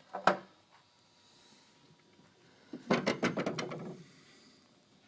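A sharp knock, then about a second of rapid clicks and rattling: handling noise from things being moved by hand.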